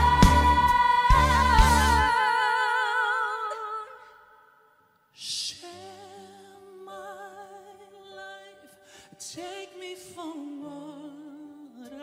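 Live pop vocals: a woman's loud held note with vibrato, backed by a full band with drums and bass, ends about two seconds in and rings away. After a moment of silence, a man sings softly over quiet, sustained accompaniment.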